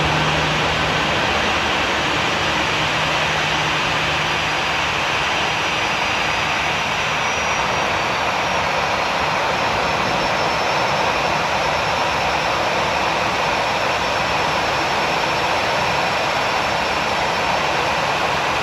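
Airbus A320's twin jet engines running at taxi power: a steady rushing hum with a faint high whine.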